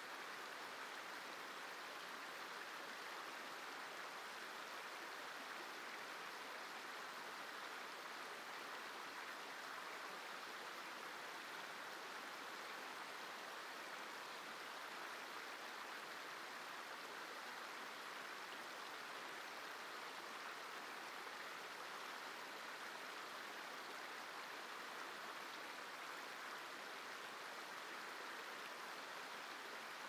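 Steady, unbroken rush of flowing water, like a stream, holding an even level with no swells or separate splashes.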